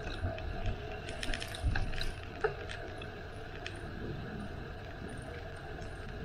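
Bicycle in motion: a steady rumble of tyres and wind, with a few clicks and rattles from the bike in the first two and a half seconds.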